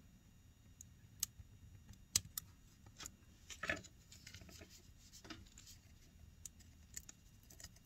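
Faint, irregular small clicks and scrapes of a plastic spudger prying at connectors and metal parts inside an opened iPad mini, with one slightly longer scrape about midway.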